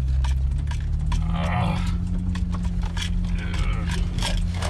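Pickup truck engine running steadily in low gear as it crawls over a rutted dirt trail, with loose things rattling and knocking in the cab, including pills rolling around in their bottle.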